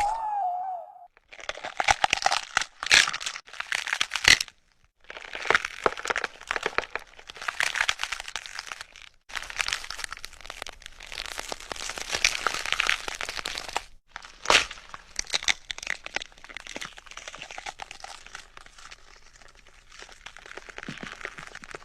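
A run of gore sound effects: bones cracking and snapping among dense crunching and tearing. Several short clips follow one another with brief breaks between them, with a few sharp cracks in the first seconds and another about two-thirds of the way through.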